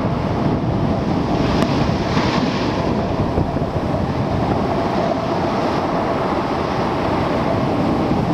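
Storm-driven ocean waves surging and breaking against a seawall and rocks, with strong wind buffeting the microphone. The noise is loud and steady, swelling slightly as waves break.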